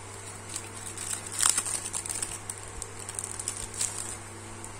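An alcohol prep pad sachet crinkling and rustling in the fingers as it is handled and opened: a run of short, irregular crackles, loudest about a second and a half in. A steady low hum runs underneath.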